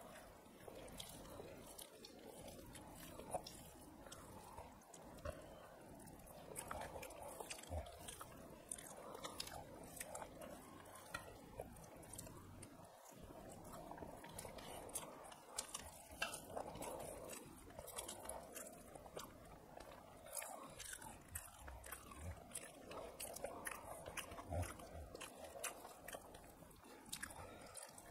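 Chewing and small mouth clicks from people eating rice and curry with their hands, many short clicks and crunches scattered throughout at a low level.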